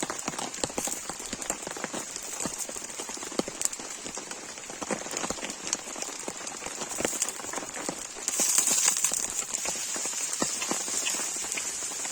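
Heavy rain pattering on a camp awning, with many separate drop hits. A higher hiss grows louder about eight seconds in.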